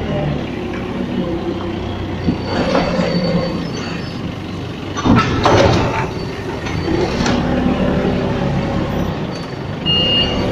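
Mitsubishi forklift running as it is driven, with a few sharp metal clanks from the mast and forks. Reversing beeps start near the end.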